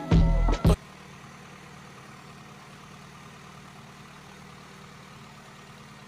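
Music with rapped vocals cuts off abruptly just under a second in, leaving a Honda Integra engine idling steadily, which the owner suspects has a vacuum leak.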